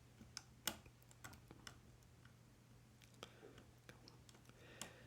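Faint scattered ticks and clicks of a hook pick working the pins of a Yale 500 pin-tumbler lock under light tension, a handful of small taps a fraction of a second to a second apart.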